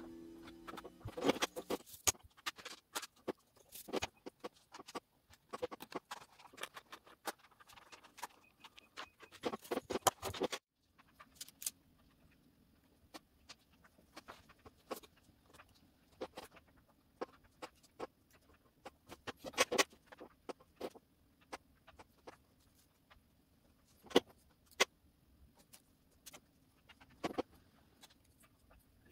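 Irregular light clicks and taps of small parts and tools being handled while working on a computer, some in quick clusters. The background cuts off abruptly about ten seconds in.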